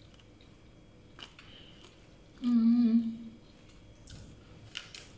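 A woman's closed-mouth hummed "mmm" of just under a second, about halfway through, while she chews a mouthful of pani puri. Soft mouth and chewing noises come before and after it.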